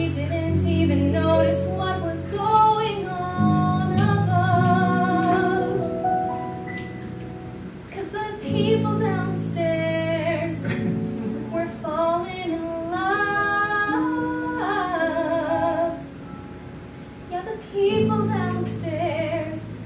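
A woman singing a musical-theatre cabaret song with strong vibrato over low sustained accompaniment, with a brief quieter stretch near the end.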